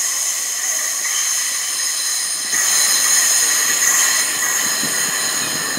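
Southeastern Class 395 train moving slowly on sharply curved track, its wheels squealing as several steady high-pitched tones over rumbling noise, louder from about two and a half seconds in.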